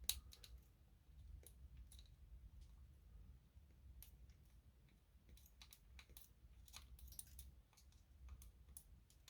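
Faint, scattered small clicks and taps of resistors being handled and fitted into a printed circuit board, the sharpest one right at the start.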